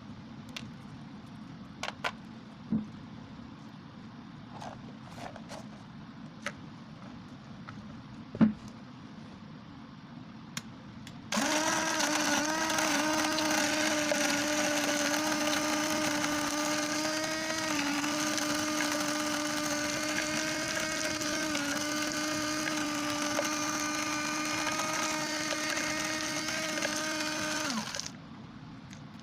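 A few light clicks and knocks of handling, then about 11 seconds in a small DC-motor mixer grinder switches on and runs with a steady high whine, its pitch dipping slightly twice, before cutting off suddenly near the end.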